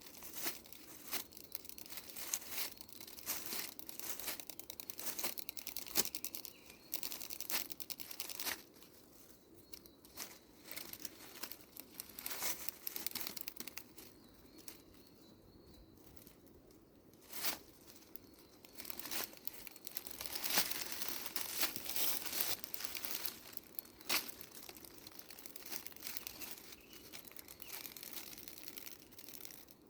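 Irregular rustling and crackling, with a quieter stretch in the middle.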